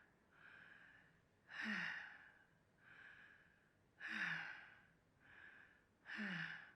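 A sick woman's laboured breathing, short of breath: three cycles of a breath drawn in followed by a louder, voiced breath out that falls in pitch, like a groaning sigh. It is a sign of worsening breathlessness.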